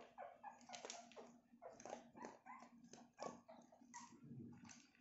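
Three-week-old poodle puppies squeaking and whimpering faintly in many short, high cries, several a second. A short low crunching near the end comes from an adult poodle chewing dry kibble.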